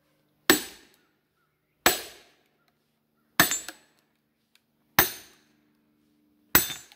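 A hammer striking a steel splitting wedge five times, evenly about one and a half seconds apart, each blow a sharp clank with a short ring. The wedge is being driven into a stringy sycamore log that is not splitting apart.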